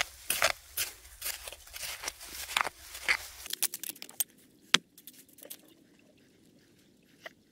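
Gloved hand scraping and pressing sandy soil and dry leaves into a planting hole: a quick run of gritty scrapes and crunches for about three and a half seconds, then a single sharp knock a little after halfway, then only faint soft rustles.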